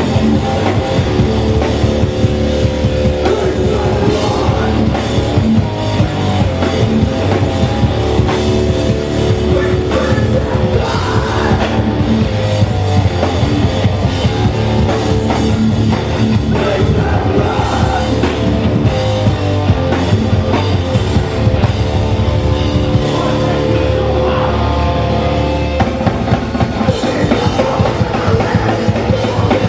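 Hardcore punk band playing live and loud: distorted electric guitars, bass and a pounding drum kit.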